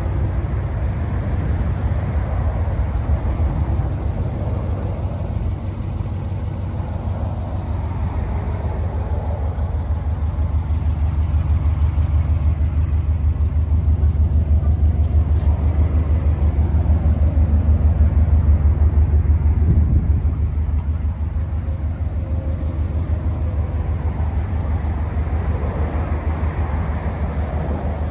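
Subaru Impreza STi Type UK's turbocharged flat-four engine idling steadily with an even low rumble. It grows gradually louder and drops back about twenty seconds in.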